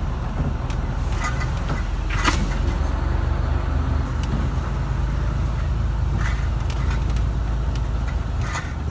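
Truck engine running steadily, heard from inside the cab as it drives along a rough dirt field track. A few sharp knocks and rattles come from the bumps, the loudest about two seconds in and another near the end.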